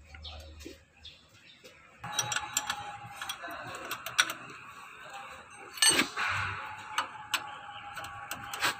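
Steel spanners clicking and clinking against the adjusting nuts of a truck's clutch pushrod as they are fitted and worked to reset the clutch adjustment. The sound is a scatter of sharp ticks, with louder clanks about six seconds in and near the end. A steady background hiss sets in about two seconds in.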